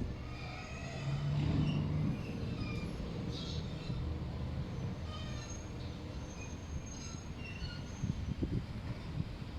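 Electric train moving on the rails, with a low running rumble and its wheels squealing in many short high-pitched tones.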